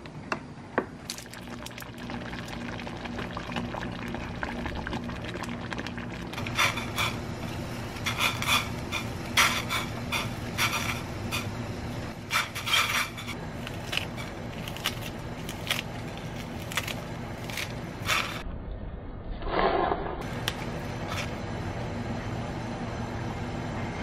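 Metal tongs and utensils clinking against a stainless steel pot as ingredients go in, with a quick run of sharp clinks in the middle, over a steady low hum.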